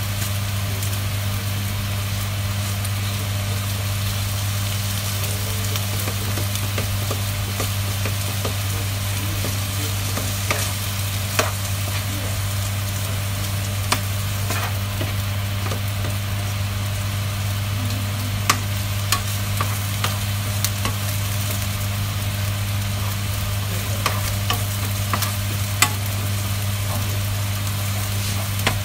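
Chopped chicken sizzling in a nonstick frying pan on a gas burner, with a steady frying hiss. It is stirred with a spoon that clicks and scrapes against the pan now and then, more often in the second half, over a steady low hum.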